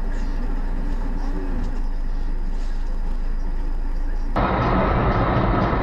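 Steady car-cabin road and engine noise recorded by a dash cam, with a faint voice in the first second or so. About four seconds in it cuts abruptly to a louder, duller noise.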